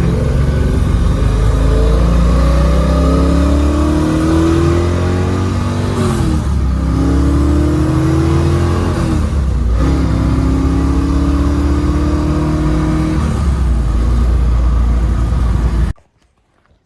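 1994 Corvette's LT1 V8 pulling under acceleration through a manual gearbox. The engine note rises, drops at a shift about 6 s in and again about 9 s in, then climbs once more before settling. It cuts off suddenly near the end.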